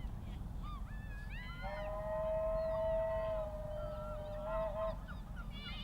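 A long, steady whistle lasting about three seconds, starting under two seconds in, over birds calling in short rising-and-falling notes throughout.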